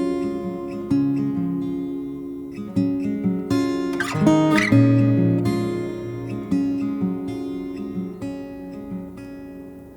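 Background music: an acoustic guitar picking and strumming chords, with no voice yet.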